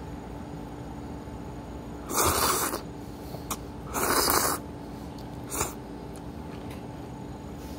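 A person slurping noodles eaten with chopsticks: two longer slurps about two seconds apart, then a short third one.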